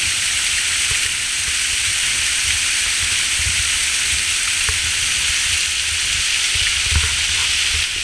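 Small waterfall spilling over a rock face into a shallow pool: a steady, even hiss of falling water, with an uneven low rumble underneath and a brief thump about seven seconds in.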